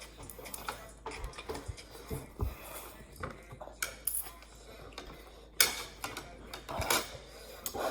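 Eating sounds: scattered light clicks and taps of utensils against a noodle bowl or cup, the sharpest about five and a half seconds in.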